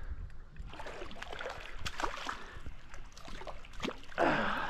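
A hooked giant trevally splashing and thrashing at the water's surface as it is brought in, with scattered small splashes and one loud splash a little after four seconds in.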